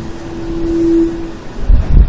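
A single steady droning tone that swells to its loudest about a second in and then fades away, one of the unexplained 'strange sounds in the sky' people have recorded. Near the end, wind buffets the microphone with a heavy rumble.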